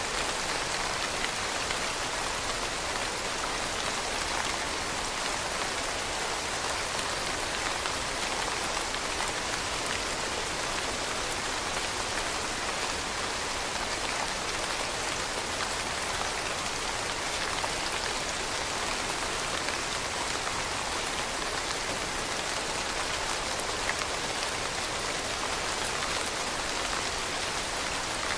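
Steady rain falling on leaves, a dense even patter of many small drops.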